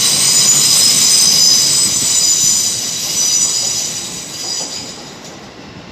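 Heathrow Express electric train moving out of the station with a steady high-pitched squeal of several tones, fading away over the last couple of seconds as it leaves.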